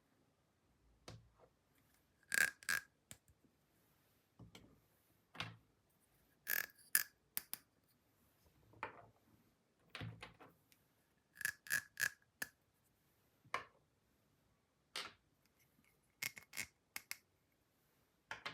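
Plastic toy pieces being handled: irregular sharp clicks, taps and clacks, a few with a brief ringing tone.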